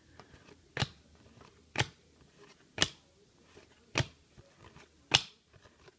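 A stack of cardboard trading cards being flipped through one card at a time, each card moved to the back of the stack with a short, sharp snap. There are five snaps, about a second apart, with faint rustling between them.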